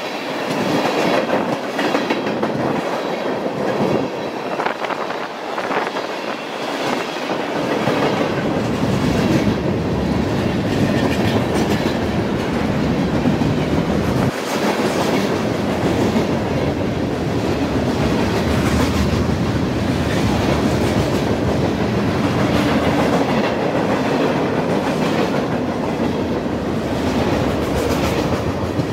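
A train passing close by: steel wheels clacking over rail joints with a steady rolling noise, which turns into a heavier low rumble from about eight seconds in.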